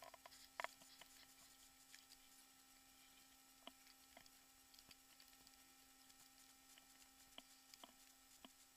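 Near silence: a faint steady hum with a sharp click right at the start and a few soft, scattered ticks, about half a dozen at irregular spacing.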